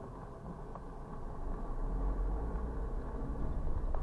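Low engine and road rumble of a car pulling forward from a stop, heard from inside the vehicle, growing louder about halfway through as it moves off.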